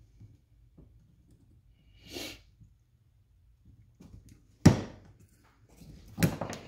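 Knocks and clicks from handling the shock's metal top cap and pick tool while O-rings are picked out of it: a short rushing noise about two seconds in, a sharp loud knock about halfway through, and a second knock near the end.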